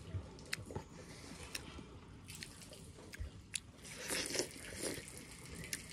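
Close-up mouth sounds of eating juicy watermelon. Scattered wet chewing clicks come first, then a denser stretch of crunchy biting into a slice about four seconds in.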